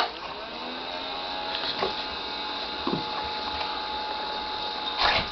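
Small electric bubble machine switching on with a click and starting up, then running with a steady motor and fan hum. A few soft knocks sound over it, and there is a short noisy burst near the end.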